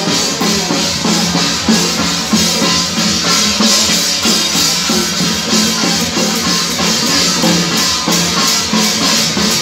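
Procession music for a Taiwanese tiaogu drum-dance troupe: drums, gongs and cymbals beating a steady rhythm with wind instruments playing a melody over them.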